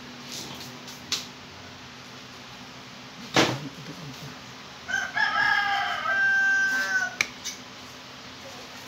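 A rooster crows once, one long call of about two seconds starting about five seconds in. Before it comes a single sharp knock, the loudest sound, with a couple of lighter clicks around it.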